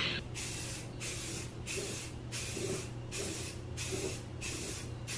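Aerosol spray can of Rust-Oleum 2-in-1 filler and sandable primer, sprayed in about seven short hissing bursts with brief pauses between them.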